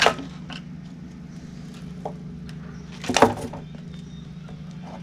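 Two sharp knocks about three seconds apart, the second a short cluster of taps, over a steady low hum.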